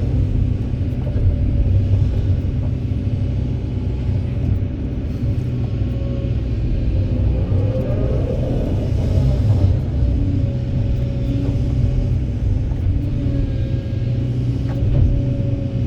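Kobelco SK200 excavator's diesel engine running under working load, a steady low rumble with a steady whine above it, and a brief rise in noise about eight seconds in.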